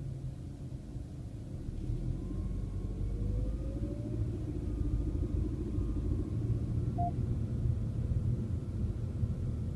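Low road and engine rumble heard inside a moving Mercedes-Benz car's cabin. It grows louder from about two seconds in, with a faint rising engine note. A short beep sounds about seven seconds in.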